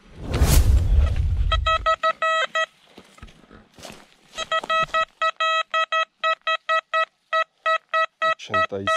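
XP Deus metal detector giving a run of short, same-pitched beeps, over and over, as it passes over a buried target that reads a steady 86, the sign of a solid, repeatable signal. A loud rush of noise fills the first two seconds before the beeps start.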